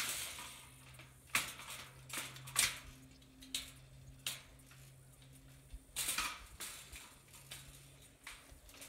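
Irregular knocks and clatters from things being handled and shifted, about a dozen over several seconds, with a cluster a little after the middle, over a faint steady low hum.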